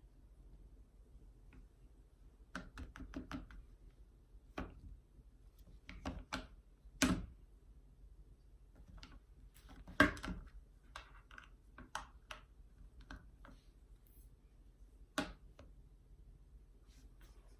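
Scattered light clicks and knocks of a phone being handled and set down on a charger, irregular and faint, with the sharpest knocks about seven, ten and fifteen seconds in.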